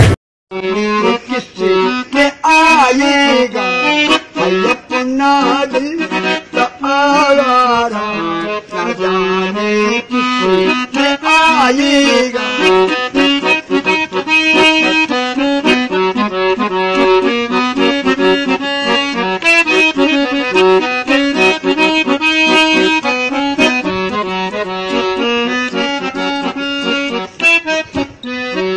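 Harmonium playing a melody over held low notes, with a man's voice singing along, sliding between notes, mostly in the first half.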